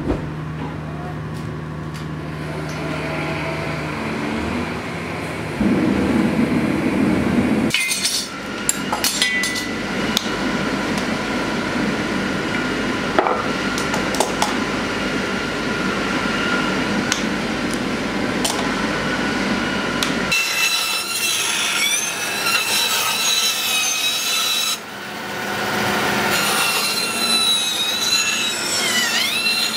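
Gas forge running steadily with a low hum. Then scattered knocks and scraping of shop work. From about two-thirds of the way in, a bandsaw runs and cuts a strip of wood, its high whine dipping in pitch near the end as the blade takes the load.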